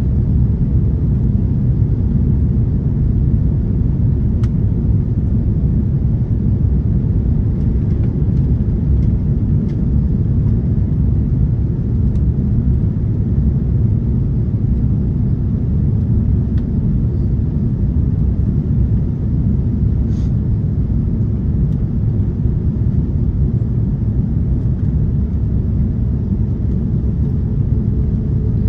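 Steady low rumble inside the cabin of an Airbus A330-300 with Rolls-Royce Trent 700 engines: engine and airflow noise, with a few faint clicks and a faint hum coming in near the end.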